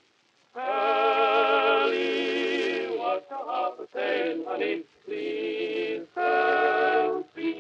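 Background music with singing: long held, wavering sung notes in short phrases, starting after about half a second of silence.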